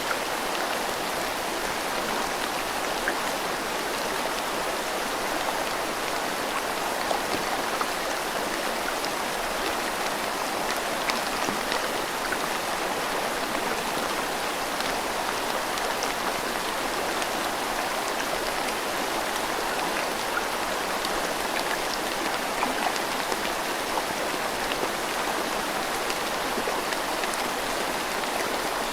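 Steady rain falling with a river running beneath it: an even rush of water, dotted with small drop ticks.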